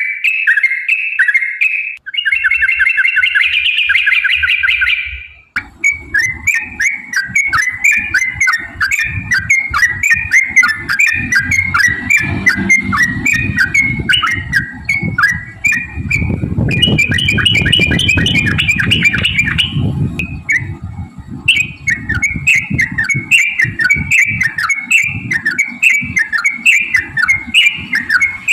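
Yellow-vented bulbul singing long, fast runs of short chirped whistling notes. There is a brief break about five seconds in, and from then on a low rumbling noise and faint clicks lie underneath the song.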